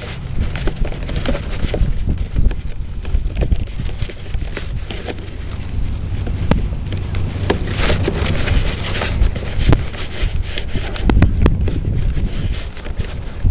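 Strong wind buffeting the microphone in a constant low rumble, with scattered sharp clicks and rubbing from close handling.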